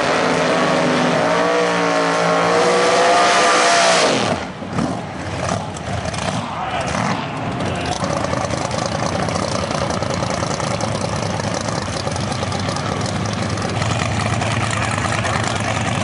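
Drag race car engines revving hard with a wavering pitch, then falling away suddenly about four seconds in, leaving a steady wash of noise.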